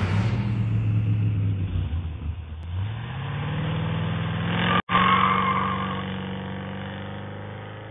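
Car engine sound effect: running, then revving up about three seconds in. After a split-second gap near five seconds comes a brief tyre squeal over the engine, which then slowly dies away.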